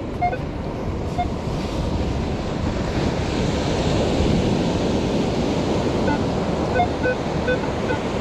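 Surf rushing onto the beach, swelling in the middle. Over it come short beeps at a few different pitches from a Minelab Equinox metal detector, two early and a run of them near the end, signalling a target still in the hole.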